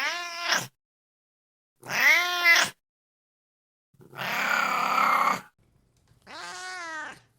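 Domestic cat meowing four times with short gaps. The first two meows are loud and rise then fall in pitch, the third is a longer, rough, raspy call of about a second and a half, and the last is a quieter meow near the end.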